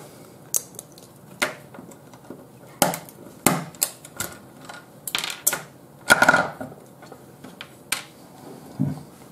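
Irregular small clicks and light taps of metal and plastic parts being handled, about nine in all, the sharpest a little after six seconds: a small screwdriver prying the neodymium magnets out of a DVD player's laser pickup.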